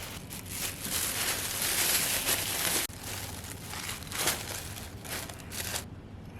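Dry crinkling and rustling handling noise, breaking off sharply about three seconds in and then going on with scraping strokes.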